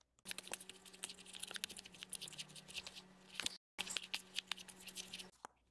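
Tarot cards being pushed and fanned through the hands one after another: a quick, quiet run of card clicks, flicks and rubs.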